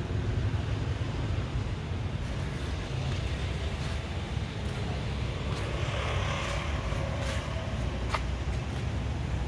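Steady low rumble of outdoor background noise, with a brief rustle about six seconds in and a few light clicks in the second half.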